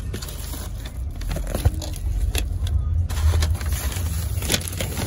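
Steady low rumble of a car, heard from inside the cabin, with a hand rustling and crinkling a paper fast-food bag and a few sharp crackles.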